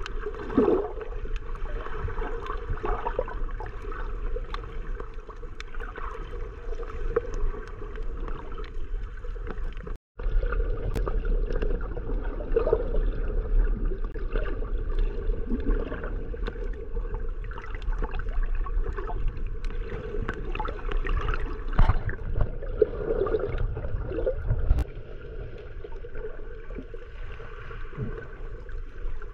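Muffled underwater sound picked up by a camera in a waterproof housing while snorkeling: steady water rush and gurgling with scattered faint clicks. The sound drops out for a moment about ten seconds in.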